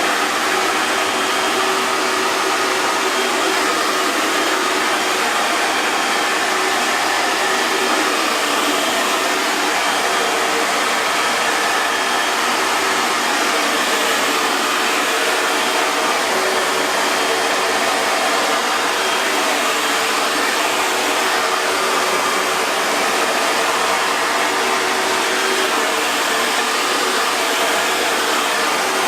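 Hair dryer running steadily: a continuous rush of blown air with a faint motor hum under it.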